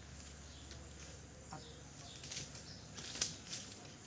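Soft rustling and light crunching of movement over dry leaves and grass, with one sharp click about three seconds in.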